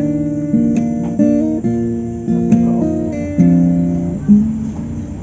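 Acoustic guitar music: chords picked on the strings, with a new chord struck every second or so and left to ring.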